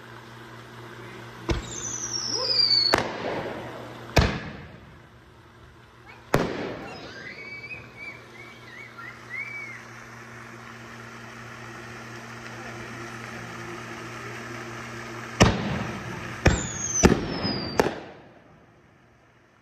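Aerial fireworks going off: four sharp bangs in the first seven seconds, then a lull, then four more in quick succession near the end. High whistles falling in pitch come just before some of the bangs.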